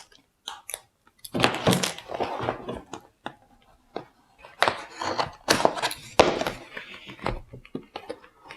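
Plastic LEGO parts bags and cardboard packaging being handled, crinkling in irregular bursts with a few thunks as pieces are set down.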